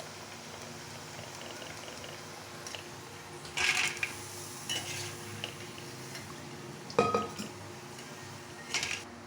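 Metal kitchen utensils clinking and clattering against cookware: a handful of separate knocks, the loudest about seven seconds in with a short ring, over a steady low background hum.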